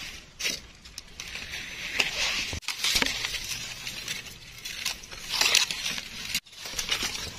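Dry fallen leaves crunching and rustling in irregular bursts.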